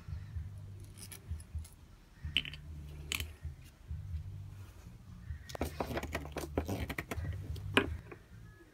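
Small metal fittings clicking and clinking as they are handled and seated on a plastic mounting disc: first a bolt, then a brass tap wall plate. A few scattered clicks, then a quick run of clinks near the end, over a low intermittent rumble.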